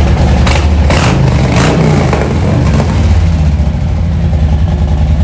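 Motorcycle engine running through newly fitted Khrome Werks slip-on mufflers, with a few quick throttle blips in the first two seconds, then settling back to a steady run.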